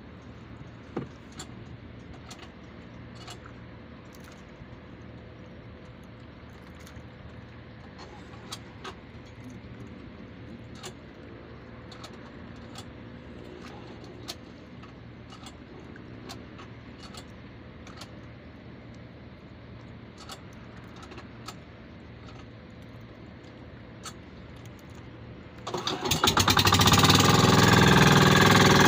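Light clicks and knocks over a faint steady hum, then, near the end, the fishing boat's pull-started engine suddenly catches and runs loudly.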